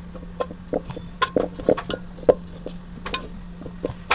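A spoon stirring gram flour into spiced potato masala in an aluminium pot, with irregular clinks and scrapes each time it knocks against the pot's side.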